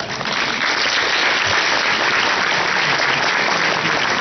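Conference audience applauding: steady clapping from a large crowd, swelling in the first second.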